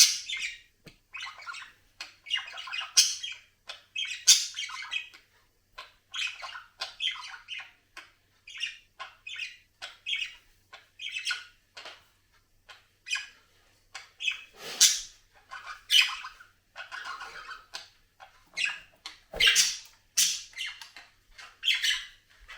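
Budgerigar chattering: many short squawks and chirps in quick succession with brief gaps between them, some calls louder than others.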